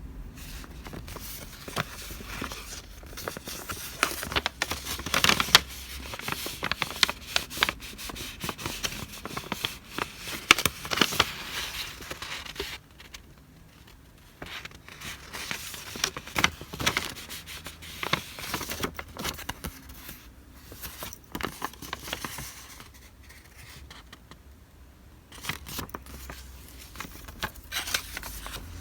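Paper goods and their plastic wrapping being handled: irregular rustling, crinkling and light tapping, in busy stretches with a couple of quieter pauses.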